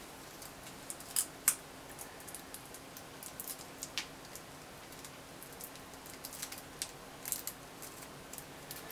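Small plastic sachets of soy-sauce tare and mustard from a natto pack being torn open and squeezed out: scattered crinkles and clicks of thin plastic, a few sharper ones about a second in, over a faint steady hum.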